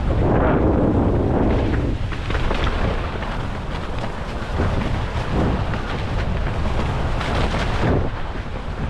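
Wind buffeting the microphone while a mountain bike descends a rough, technical trail, with a steady low rumble and scattered knocks from the tyres and bike over the ground.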